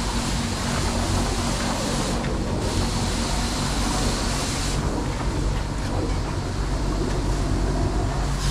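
Self-service car wash foam brush running: a hiss of soapy water over the steady hum of the wash bay's pump machinery as the car is scrubbed. The hiss drops briefly after about two seconds and fades back from about halfway through, leaving mostly the hum.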